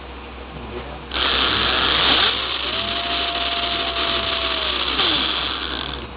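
2200kv brushless RC motor spinning up about a second in, holding a steady whine, then winding down near the end, with a loud harsh rasping growl over the whole run: the excessive growl the owner complains of.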